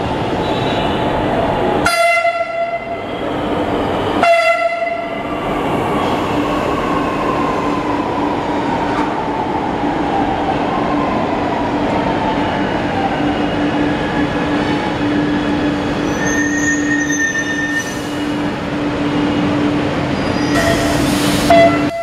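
Chennai Metro train (Alstom Metropolis) arriving at a station: two short horn blasts about two seconds apart, then the electric drive's whine falling slowly in pitch as it brakes to a stop over a steady hum. A brief tone sounds just before the end.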